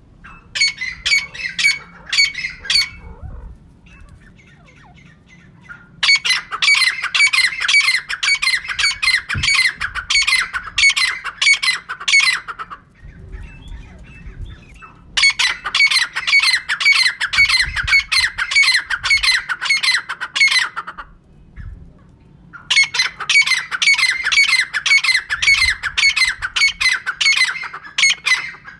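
Female francolin (teetar) calling: bouts of rapid, sharp, repeated call notes, several a second, each bout lasting a few seconds, with short pauses between them.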